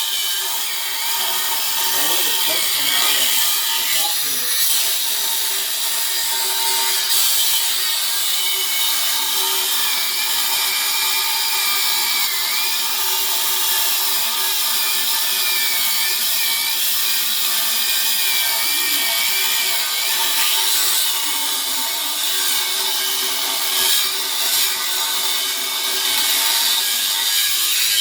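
Electric grinder with a cutting blade running continuously as it cuts into a steel safe, a steady loud grinding with a motor whine that wavers slightly as the load changes.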